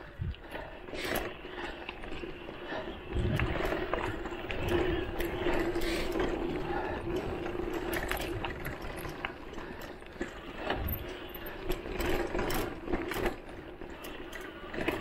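Voltbike Enduro electric mountain bike's motor whining at a steady pitch under pedal assist, coming in about three seconds in and easing off near the end. Over it, frequent clicks, rattles and knocks from the bike jolting over a bumpy dirt single track.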